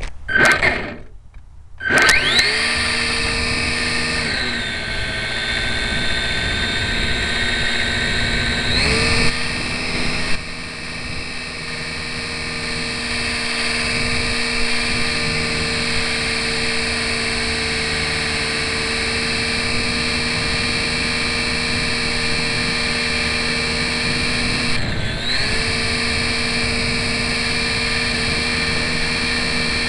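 Electric motor and propeller of a GWS Slow Stick RC plane, heard up close from a camera carried on the plane. After a brief noise, the motor spools up sharply about two seconds in for takeoff, then runs as a steady multi-toned whine. Its pitch drops and comes back up three times as the throttle changes.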